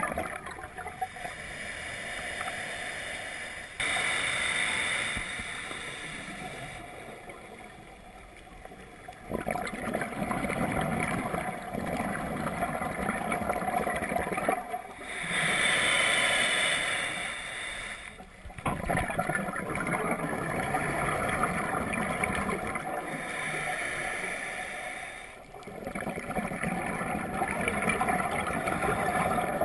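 Scuba regulator breathing heard underwater: two hissing inhalations, one a few seconds in and one about halfway through, between longer stretches of bubbling, gurgling exhalation.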